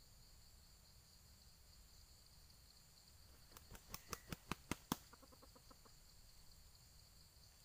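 Red junglefowl roosters clashing: a quick run of about eight sharp wing slaps over roughly a second and a half, speeding up and loudest at the end, then a few faint ticks. Insects drone steadily at a high pitch throughout.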